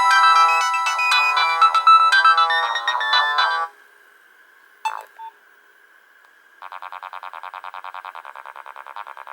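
Nokia 1110i mobile phone ringtones: one electronic melody of beeping notes stops after about three and a half seconds. A single click follows during a short pause. Then, about two-thirds of the way in, another ringtone starts as a fast, evenly pulsing electronic tone.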